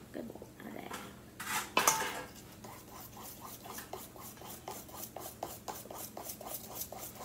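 Wire whisk beating a thin batter in a stainless steel mixing bowl, quick regular strokes against the metal, about four or five a second. A louder clatter comes about two seconds in, just before the whisking settles into its rhythm.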